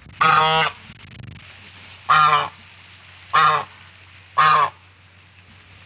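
White domestic goose honking four times, each honk short and under half a second, spaced about one to two seconds apart.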